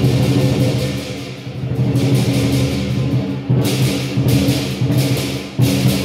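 Southern lion dance percussion: a drum beaten in fast, dense strokes over a low ringing gong-like tone, with cymbals crashing a few times in the second half.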